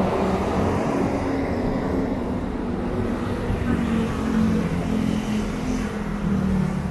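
City street traffic noise: a steady low rumble of vehicle engines with a wavering hum.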